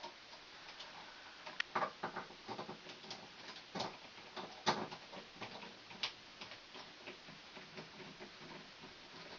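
Irregular small metal clicks and scrapes as a light switch is fitted into an electrical box and its mounting screws are turned with a hand screwdriver, with the loudest clicks about two seconds in and again near five seconds.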